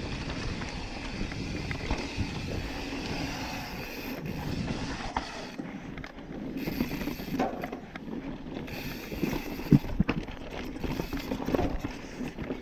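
Yeti SB5 full-suspension mountain bike rolling down a dirt singletrack: steady tyre noise on the trail with frequent small rattles and knocks from the bike over bumps, and one sharper knock about ten seconds in.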